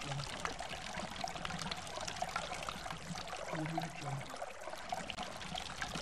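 Stream water rushing and splashing over rocks: a steady flow dotted with many small splashes.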